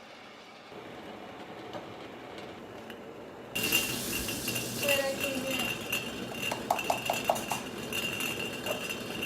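Dishes, cutlery and glass clinking, with a rush of noise that starts suddenly about three and a half seconds in and carries on, and a quick run of sharp clinks around the middle.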